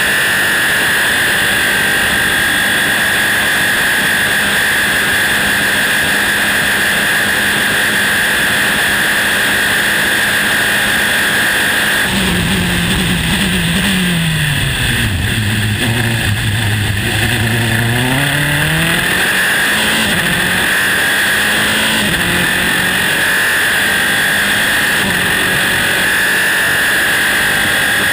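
Onboard sound of a Dallara-Volkswagen Formula 3 racing car's engine held at high revs at full throttle. About twelve seconds in, the pitch falls in several quick steps as the car brakes and downshifts, runs low for a few seconds through the corner, then climbs again as it accelerates back up through the gears to a steady high note.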